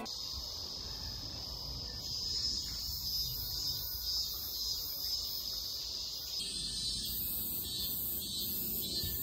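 Steady chorus of insects, a continuous high-pitched buzz; about six seconds in, a second insect joins with a pulsing call repeating roughly one and a half times a second. A low rumble runs underneath.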